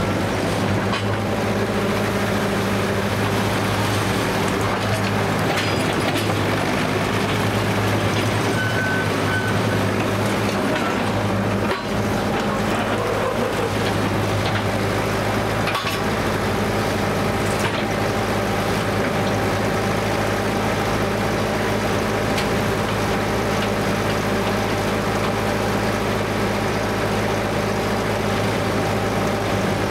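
Engine of a 1955 Bucyrus-Erie 15-B cable shovel running steadily under load as the shovel digs and lifts a full dipper of dirt, with a few short knocks from the machinery.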